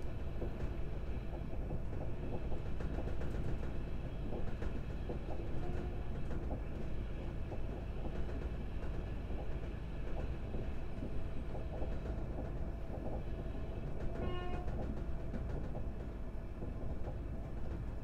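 Passenger train running steadily along the track, a continuous low rumble with scattered light clicks of the wheels and carriage. A brief pitched tone sounds about fourteen seconds in.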